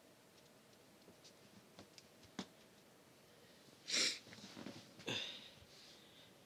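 A person's breath forced out sharply through the nose twice, about a second apart, after a few faint clicks of the phone being handled.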